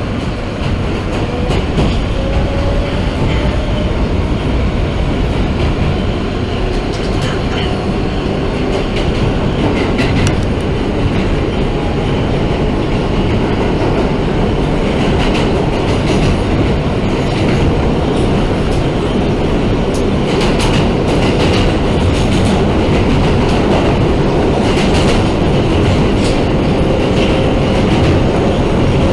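New York City subway car running between stations, heard from inside the car: a steady rumble of wheels on rail with clickety-clack, scattered sharp clicks and a faint whine rising in pitch near the start.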